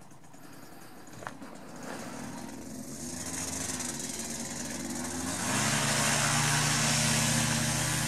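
Paramotor trike's engine and propeller running at low power, slowly picking up, then opened to full power about five and a half seconds in for the takeoff run that pulls the wing up overhead.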